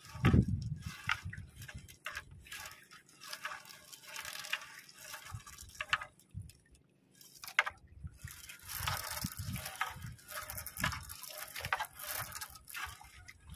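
Seawater splashing and dripping in irregular bursts, with short knocks, as a fishing net is hauled aboard a small boat.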